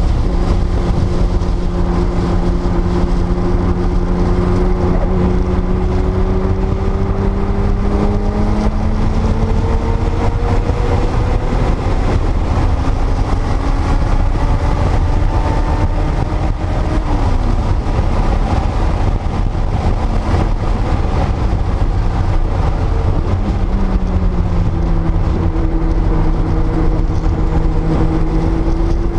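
1979 Porsche 930 Turbo's turbocharged air-cooled flat-six running under load at track speed. Its pitch climbs slowly and drops twice, about two-thirds of the way in and again near the end, over a heavy low rumble.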